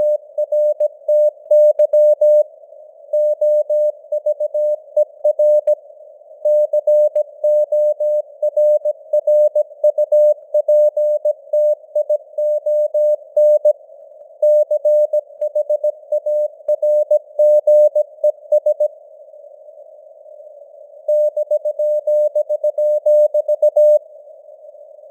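Morse code (CW) sent at 17 words per minute as a single pure tone of about 600 Hz, keyed on and off in dots and dashes over a narrow band of simulated radio hiss. The keying stops for about two seconds in the last quarter, then starts again.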